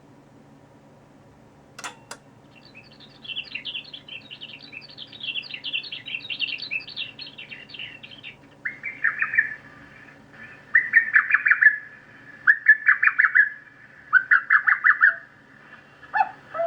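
The electronic chime of a JR West 183 series train playing its synthesized birdsong tone, the chime for originating and terminal stations. After a click it gives a rapid high twittering for about five seconds, then four shorter, lower warbling trills about two seconds apart, over a steady electrical hum.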